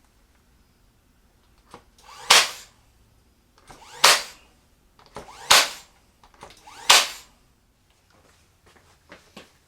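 Four sharp, loud cracks about a second and a half apart, each led in by a short softer rustle, from wood being struck or fastened during assembly; a few fainter knocks follow near the end.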